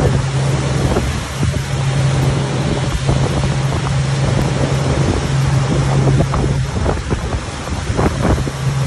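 Twin Mercury outboard motors running at speed on a speedboat, a steady low hum under the rush of the churning wake and wind buffeting the microphone.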